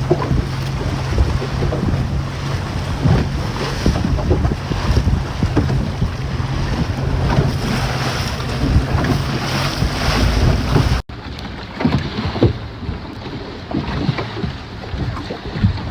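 Boat under way at sea: a motor hums steadily under wind buffeting the microphone and water rushing past the hull. The sound cuts off abruptly about eleven seconds in, then continues as quieter wind and water noise.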